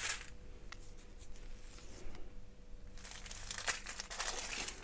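Small plastic bags of diamond-painting drills crinkling as they are handled. Faint at first with a couple of light clicks, then a steady dense crinkling from about three seconds in.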